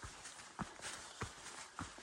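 Footsteps of a hiker walking on a dirt trail, a steady pace of about three footfalls every two seconds.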